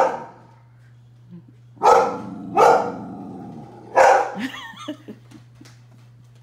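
A dog barking three times, about two, two and a half and four seconds in, with quieter trailing sounds after the last bark.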